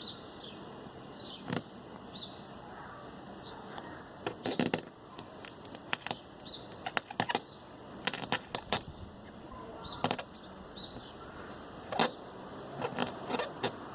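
Razor blade held at about 90 degrees scraping cured windshield repair resin off the glass, in short irregular scrapes and clicks that come in clusters with pauses between.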